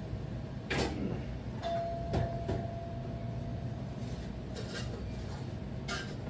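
Restaurant counter background: a steady low hum with a few sharp clatters and knocks, and a brief ringing tone about two seconds in.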